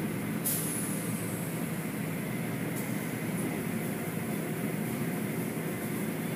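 Automatic car wash's spinning cloth brush strips rubbing and slapping over the car, heard from inside the car as a steady mechanical rumble and swish. There are brief high hisses about half a second in and near three seconds.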